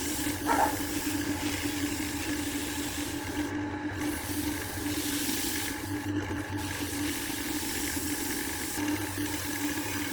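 Wood lathe running, with a steady motor hum and an even hiss throughout.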